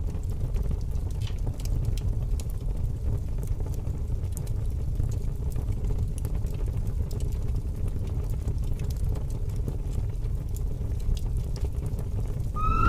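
A steady low rumbling noise with scattered faint crackles and clicks.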